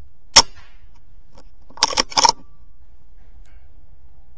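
A single shot from a BSA Super10 .22 air rifle just after the start, sharp and loud. About a second and a half later comes a short run of three or four metallic clicks.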